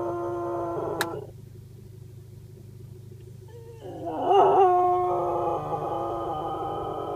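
Cocker spaniel howling: a long held howl that ends about a second in, a short pause, then a louder howl that wavers up and down in pitch before settling into a steady held note.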